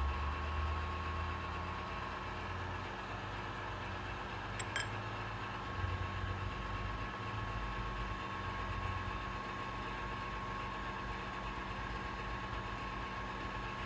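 Steady low mechanical hum with a thin high tone running through it, and a couple of faint light clicks about five and six seconds in.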